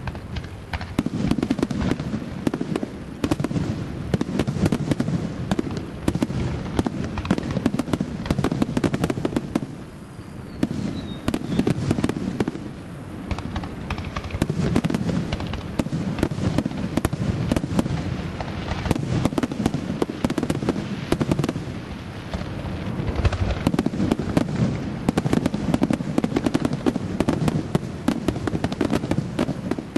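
Aerial fireworks in a rapid, unbroken barrage of bangs and crackling, easing briefly about ten seconds in and again a little past twenty seconds.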